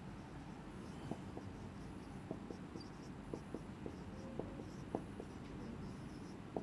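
Marker pen writing on a whiteboard: faint, irregular short strokes and ticks as a line of text is written.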